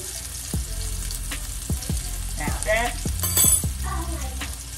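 Meatballs frying in a little oil in a nonstick skillet over lowered heat: a steady sizzle with short sharp crackles every second or so, and a brief louder hiss about three seconds in.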